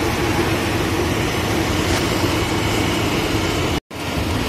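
Truck engine running with a steady hum, broken by a moment of silence near the end.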